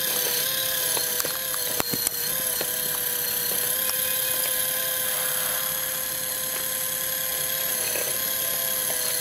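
Electric hydraulic pump of an RC scale CAT 336D2 excavator running with a steady high whine as the bucket digs. A few sharp clicks come between one and two seconds in, from the bucket knocking on stones.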